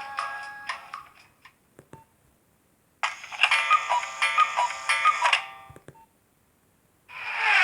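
Nokia 1208b mobile phone ringtones through the phone's small speaker. One tune fades out over the first second, and a few faint clicks follow. After a pause a short, bright electronic melody plays for about two and a half seconds and stops, and a new tone begins near the end.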